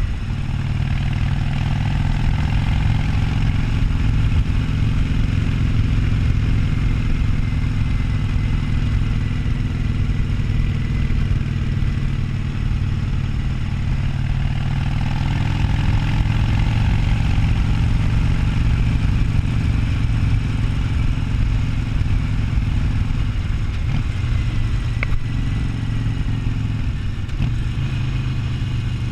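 Harley-Davidson Sportster 1200's air-cooled V-twin engine running steadily while the motorcycle is ridden, its exhaust note holding an even pitch with only small shifts in throttle.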